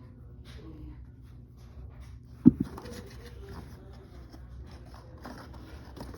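Toy packaging being handled and opened: scattered scraping and rustling of cardboard and plastic, with one sharp knock about two and a half seconds in.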